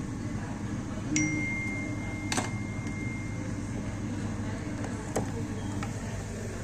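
Steady kitchen hum with a few sharp knocks of utensils. About a second in, metal is struck and rings clearly for about two seconds.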